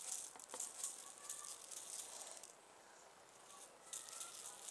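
Silver glitter shaken from a plastic shaker bottle with a perforated lid: a faint rattling hiss in quick repeated shakes, pausing briefly a little past halfway.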